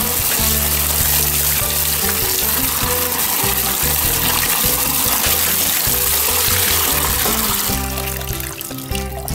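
Tap water pouring and splashing into a basin as hands rub fruit in a plastic colander, over background music with steady low notes. The pouring thins out about eight seconds in.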